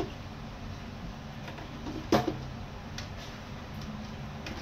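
A plastic food container knocking against a stainless-steel kitchen sink as it is handled: a few sharp knocks, the loudest about two seconds in, over a steady low hum.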